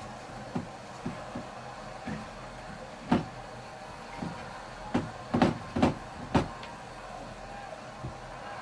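Irregular light knocks and taps on a tabletop, about a dozen: the loudest about three seconds in and a quick cluster between five and six and a half seconds in.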